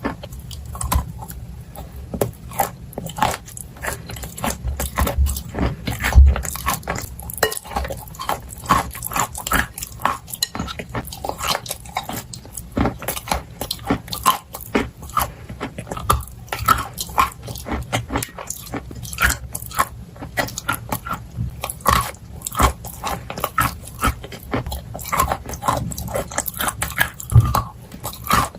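Close-up crunching and chewing of dry clay and chalk coated in clay: a dense, irregular run of sharp bites and crunches.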